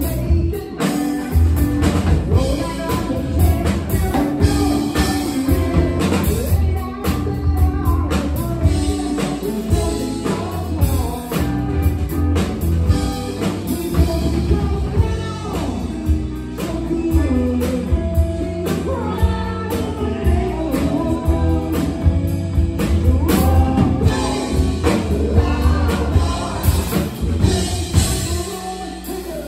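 Live blues-rock band playing: electric guitar, electric bass and drum kit, with a sung vocal over them.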